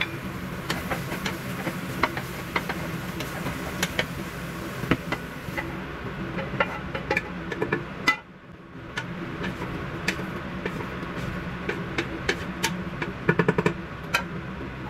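Wooden spatula knocking and scraping against a frying pan and a stainless steel stock pot as half-cooked tomatoes are moved from one to the other. It gives many sharp, irregular clicks and taps over a steady low hum.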